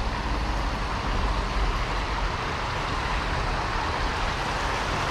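River water rushing, a steady, even sound with no breaks.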